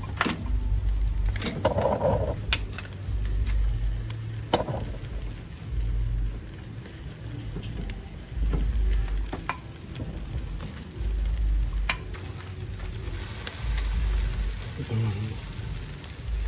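Meat sizzling and crackling over charcoal on a barrel grill, with metal tongs clicking now and then against the grate. A low rumble swells and fades every two to three seconds underneath.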